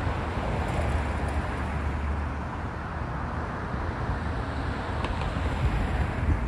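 Steady road traffic noise from cars passing through a busy street intersection, a continuous wash of engine and tyre sound with a low rumble.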